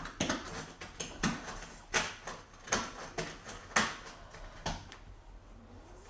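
Paper and box packaging rustling and crackling in irregular bursts, with the loudest crackles about two and four seconds in.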